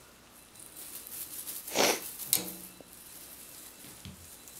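Kittens batting a tinsel wand toy, with soft rustling and light taps against a quiet room. A brief, louder hissing noise comes about two seconds in, then a click and a soft thump later on.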